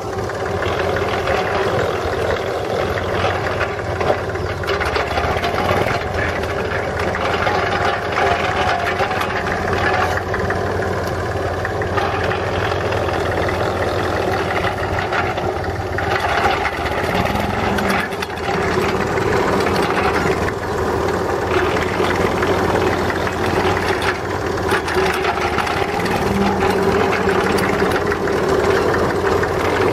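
Tractor engine running steadily while driving a rear-mounted spinning-blade compost spreader through its PTO shaft.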